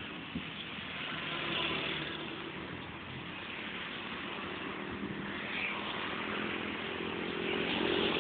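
Road traffic: the steady noise of vehicle engines and tyres going by, growing louder near the end.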